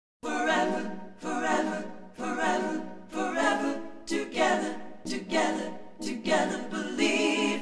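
Music soundtrack opening with unaccompanied voices singing, a short phrase about once a second over a held low note, with no drums.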